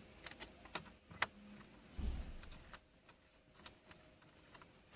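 A Phillips screwdriver backs a screw out of plastic dashboard trim: a run of small clicks and ticks, with a dull low knock about two seconds in.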